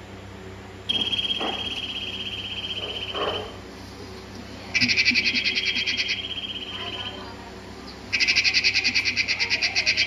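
High, rapid trilling animal calls in three bouts of two to three seconds each, the second and third louder and pulsing, over a faint steady low hum.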